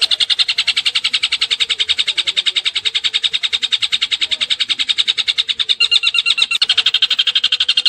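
Long-tailed shrike (cendet) singing a rapid, unbroken trill of about twelve notes a second.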